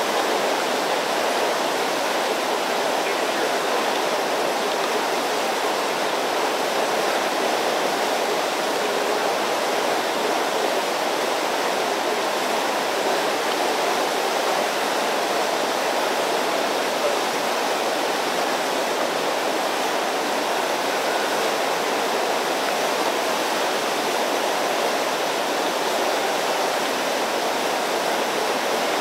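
Steady rush of river rapids flowing over rocks.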